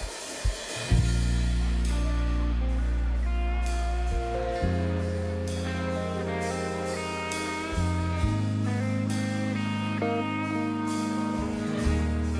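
Church worship band starting an instrumental passage about a second in, after a couple of drum hits: held low bass chords change about every three and a half seconds under a picked guitar-like melody.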